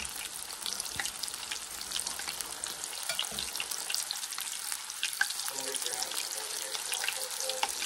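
Siomai dumplings pan-frying in hot oil: a steady sizzle with many small crackling pops, on a flame just turned down from fairly high.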